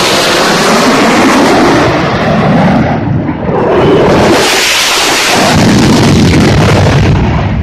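Four F-16 fighter jets flying past in formation, their jet engine noise loud throughout, easing briefly about three seconds in and then swelling again as they pass.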